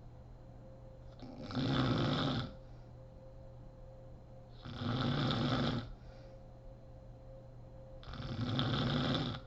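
A sleeping woman snoring: three loud snores, one about every three seconds, each lasting just over a second, with quieter breathing between.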